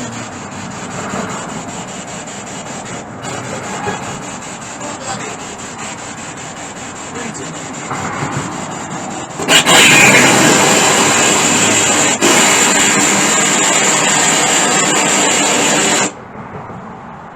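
SB7 spirit box sweeping through radio stations, giving a steady rasping hiss of static. About nine and a half seconds in the static jumps much louder, then it just stops about six seconds later.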